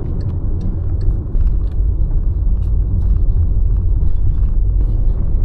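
Car driving, a steady low rumble of road and engine noise heard from inside the cabin, with a few small clicks or rattles.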